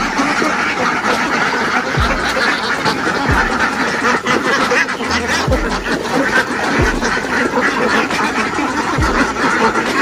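A large flock of egg-laying ducks quacking continuously, many calls overlapping into a steady din.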